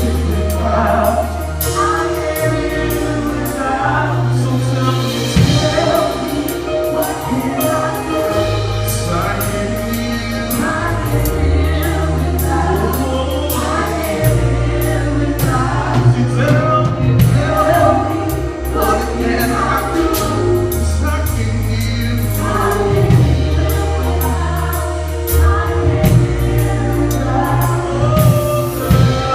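Gospel choir singing with a live band, with long held bass notes under the voices and drums hitting steadily throughout.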